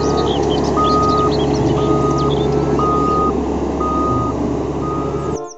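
Diesel engine of a single-drum road roller running steadily while its reversing alarm beeps about once a second; the sound cuts off suddenly near the end.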